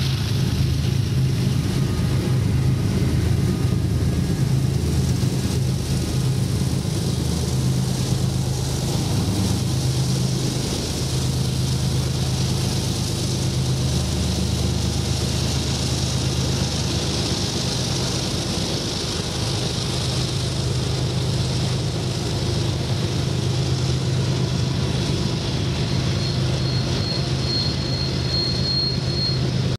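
Freight cars of a long Union Pacific train rolling past on a curve: a steady rumble of steel wheels on the rails over a low, even drone. A thin, high, steady squeal joins near the end.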